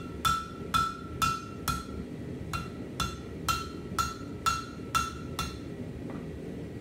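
Hand hammer striking hot steel over a hardy cutter on an anvil, cutting off the excess: about two blows a second, each with a short metallic ring. The blows stop about five and a half seconds in.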